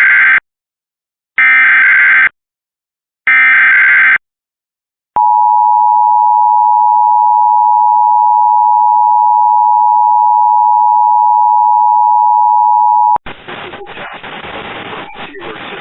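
Emergency Alert System SAME header: three raspy bursts of data tones, each about a second long and a second apart. About five seconds in, the EAS two-tone attention signal (853 and 960 Hz together) follows and holds steady for about eight seconds. It cuts off sharply into noisy broadcast audio.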